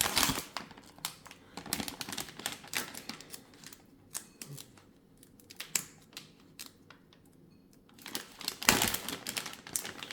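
Foil cable pouch and packaging being handled and opened: scattered light clicks and taps, then a burst of crinkling near the end.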